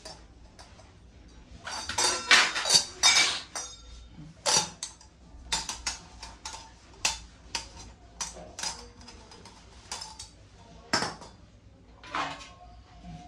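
Brass utensils clinking and knocking against each other as they are handled. There is a quick cluster of loud knocks about two to three seconds in, then single knocks every second or so.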